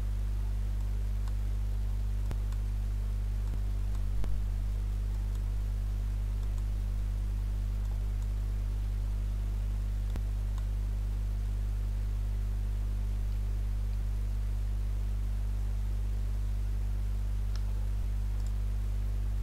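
Steady electrical mains hum over a faint hiss, with a few faint clicks.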